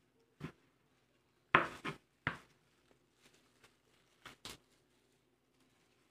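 Scattered sharp knocks and clatter of kitchen work, several short strikes at irregular intervals with the loudest about a second and a half in.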